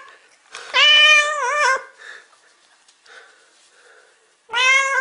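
Black-and-white domestic cat meowing twice. The first meow lasts about a second and wavers in pitch near its end; the second starts near the end.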